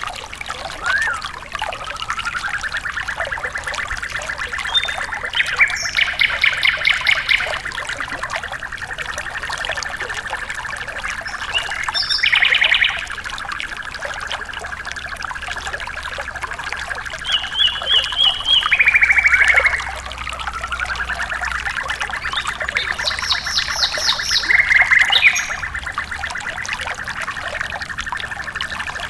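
Trickling water with birdsong over it: a long, even trill held at one pitch, which starts twice with a short rise, and several quick, rapidly pulsed higher phrases between, from a sikatan londo (a flycatcher) and a sempur hujan rimba (a broadbill) recording made for bird training.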